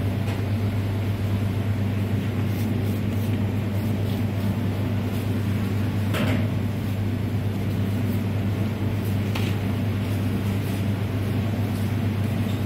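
Steady low hum of commercial kitchen equipment, with a few faint clicks and rustles of food being handled, the clearest about six seconds in.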